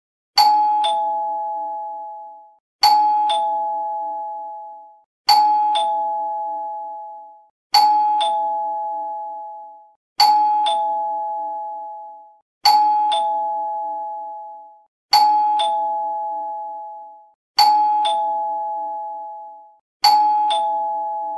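Doorbell chime ringing ding-dong, a higher note then a lower one, nine times in a row about every two and a half seconds, each pair fading out before the next.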